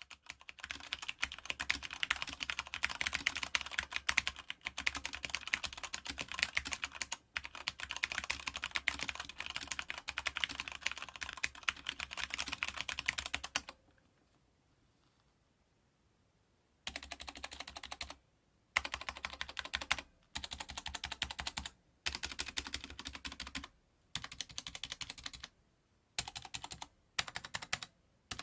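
Corsair K70 RGB MK.2 mechanical keyboard with Cherry MX Brown switches being typed on: a fast, continuous run of keystrokes for about fourteen seconds, a pause of nearly three seconds, then shorter bursts of typing with brief pauses between them.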